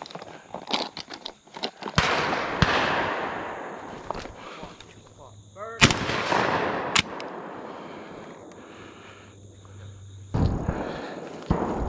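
A string of shotgun shots, about six, each with a long rolling echo. The loudest comes about six seconds in.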